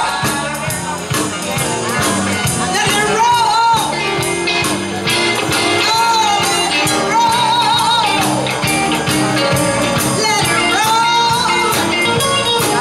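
Live band playing an upbeat rhythm-and-blues number, with a woman singing lead in held, wavering notes over electric guitars and a drum kit.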